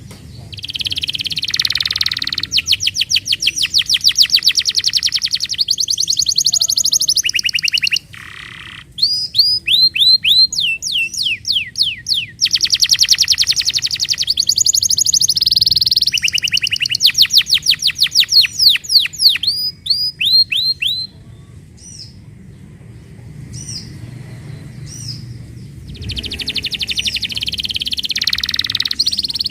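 Canary singing: long phrases of very rapid trills and repeated downward-sweeping whistles, with a quieter gap of about five seconds before the loud trilling starts again near the end.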